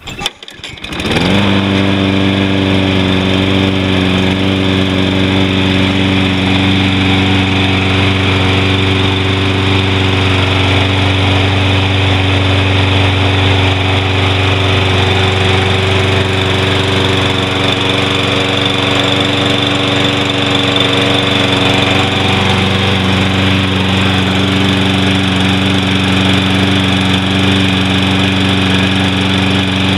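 Toro Recycler Personal Pace mower's 190 cc Briggs & Stratton engine catching about a second in, rising to speed, then running steadily. It is still burning old gas from the tank.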